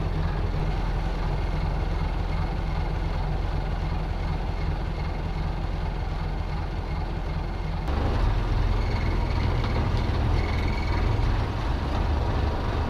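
Inboard engine of a classic wooden motor cruiser running steadily, heard from inside the wooden wheelhouse. About eight seconds in the drone shifts to a deeper, slightly louder rumble.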